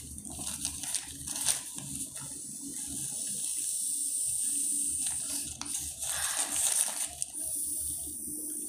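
A person blowing their nose into a paper tissue: one long blow that swells over a couple of seconds in the middle, then a shorter blow near the end.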